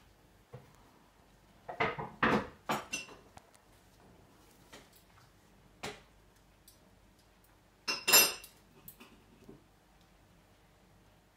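Cockatoo clattering a wooden ring against its stainless-steel food and water bowls, trying to dunk the ring in the water. The sound is bursts of metallic clanking: a cluster about two seconds in, a single knock near the middle, and the loudest cluster about eight seconds in.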